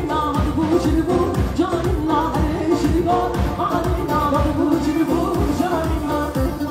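A woman singing a Turkish halay folk song into a microphone, amplified, over live keyboard backing with a fast, steady drum beat.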